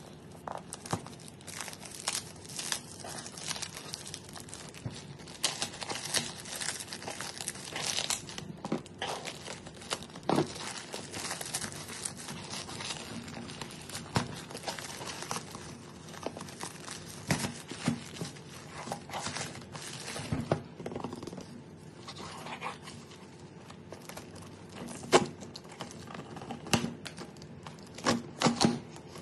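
A plastic courier mailer and its black plastic inner wrap being torn open and crinkled by hand, with dense rustling and sharp crackles. Near the end come a few louder sharp clicks and knocks as the cardboard box inside is handled.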